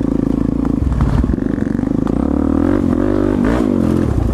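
Suzuki DR-Z400SM's single-cylinder four-stroke engine running at riding speed, heard from the saddle. Its note rises and falls a few times in the second half as the throttle is worked.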